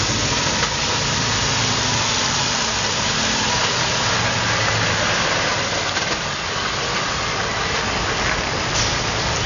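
Heavy truck's diesel engine running at low speed as the tractor unit rolls slowly past, with a steady hiss of tyres on the wet road.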